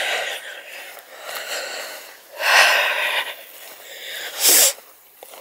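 A person breathing hard close to the microphone while walking: a few loud, hissing breaths, the last short and sharp near the end.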